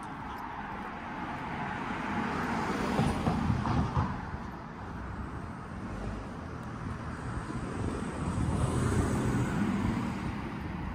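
Cars passing on a narrow street, tyre and engine noise swelling twice: about three seconds in, and again near the end as a small hatchback approaches and goes by.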